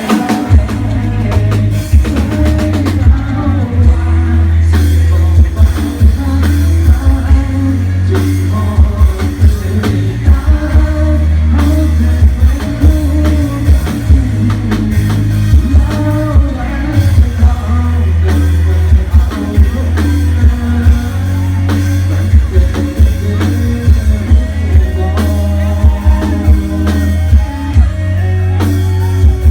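Thai rot hae sound truck with a live band: a singer over a drum kit and very heavy bass, played loud through the truck's speaker system with a steady, regular drum beat.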